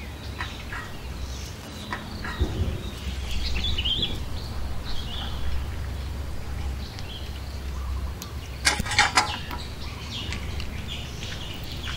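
Birds chirping and calling over a low steady hum, with a brief loud burst of sharp sounds about nine seconds in.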